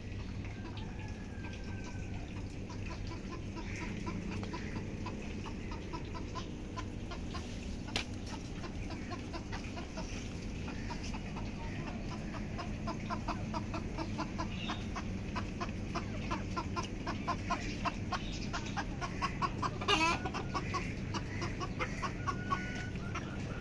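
Chickens clucking in runs of short, quickly repeated notes, with one louder call near the end.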